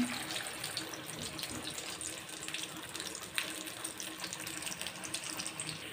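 Shami kababs deep-frying in hot oil: a steady sizzle with scattered small crackles and pops.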